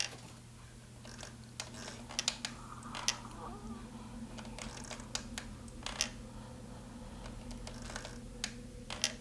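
Scattered, irregular light clicks and taps over a steady low hum.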